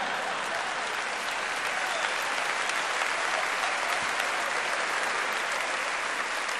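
Large audience applauding steadily, an even wash of clapping with no let-up.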